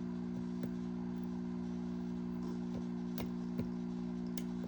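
Faint, scattered clicks of a lock pick working the pins inside a Goal Z pin-tumbler lock under tension, over a steady low hum.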